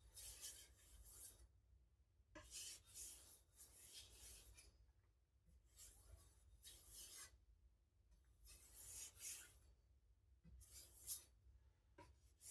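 Faint rasping strokes of a knife edge drawn across a sheet: about six slow passes, each about a second long, with short pauses between. These are light deburring passes that clean up the burr left by sharpening.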